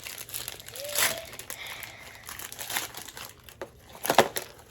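A small packaging bag crinkling and rustling as it is handled and opened by hand, with a sharper crackle about four seconds in.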